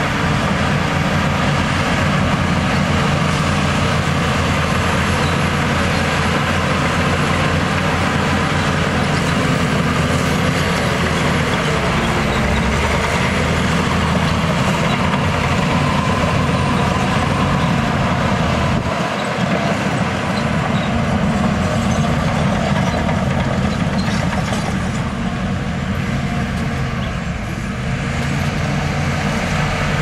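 Heavy diesel engines of Shantui crawler bulldozers and a tipping dump truck running steadily as the dozers push dirt. The engine note shifts now and then.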